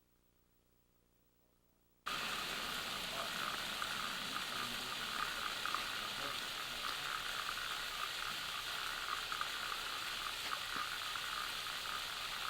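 About two seconds of near silence, then an abrupt start of a steady, dense hiss with a fast crackling chatter that holds to the end.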